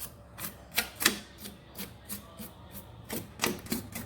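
A brush scrubbing dust off the inside of an opened LED TV: quick back-and-forth strokes, about three a second, each a short scratchy swish.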